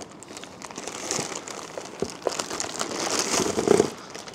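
Packaging of an electric-unicycle fast charger rustling and crinkling as it is handled, with scattered small clicks, growing louder toward three to four seconds in.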